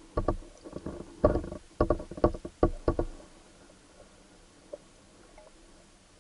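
About a dozen muffled underwater knocks and clunks in the first three seconds, from a submerged camera's waterproof housing being bumped and shifted, then only a faint steady hum.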